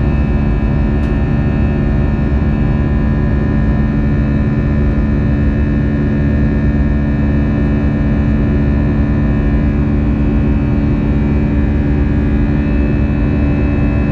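Steady cabin noise inside an Airbus A320-200: the constant drone of jet engines and airflow, with a low steady hum and fainter higher whining tones, unchanging throughout.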